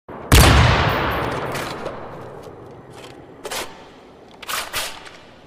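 Thunder sound effect: a sudden loud crack about a quarter-second in that rumbles away over a few seconds, followed by several shorter, fainter cracks.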